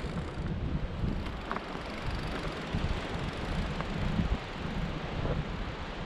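Gusty coastal wind buffeting the microphone: a low, uneven rumble of wind noise that rises and falls with the gusts.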